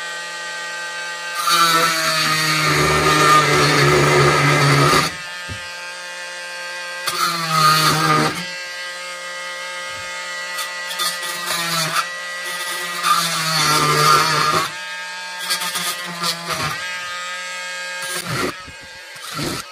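Dremel oscillating multi-tool running with a steady buzz, its blade cutting through the solder tabs on a lithium battery pack's circuit board. It grows louder and harsher for stretches of one to three seconds, several times, as the blade bites into the metal.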